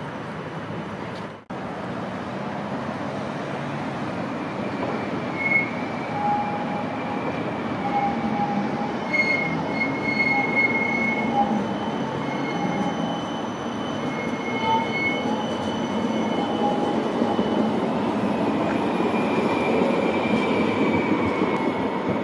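CAF Urbos 3 low-floor tram running on its rails, with its wheels giving short high squeals on and off through the middle stretch as it rounds a curve. The sound cuts out for an instant about a second and a half in.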